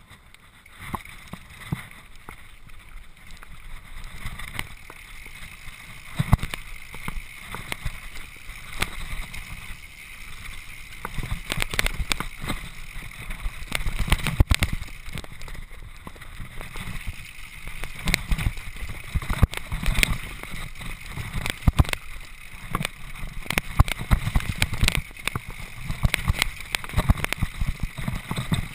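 Mountain bike riding over rough, rocky trail, recorded by a GoPro riding on the bike: a steady rumble of tyres on rock and gravel with frequent knocks and rattles as the bike hits bumps. Wind noise on the microphone adds to the rumble.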